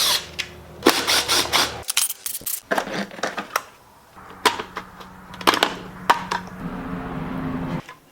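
Repeated sharp metallic clicks and clinks of hand tools and engine parts being handled, with a steady low hum under the first two seconds.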